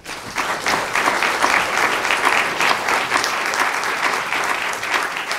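Audience of a few dozen seated people clapping, sustained applause that starts just after the talk ends and tapers off near the end.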